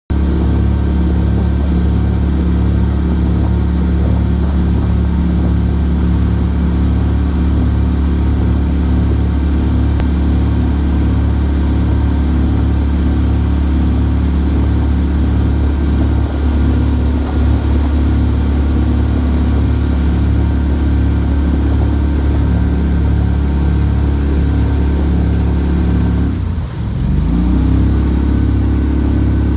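Motor of an aluminum duck boat running steadily under way. Near the end the engine note drops sharply for about a second, then picks back up.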